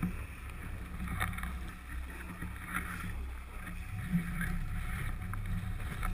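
Wind rumbling on the action camera's microphone while snowboarding down a groomed slope, with a few brief scrapes of the board on the packed snow.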